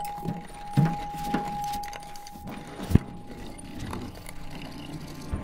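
A ringing chime tone dying away slowly, with a few hollow knocks and a sharp click about three seconds in. The chime is struck again right at the end.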